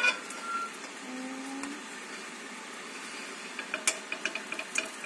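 Spatula knocking and scraping against a frying pan of pan-fried dumplings: one sharp clack at the start, then a quick run of about eight clicks near the end.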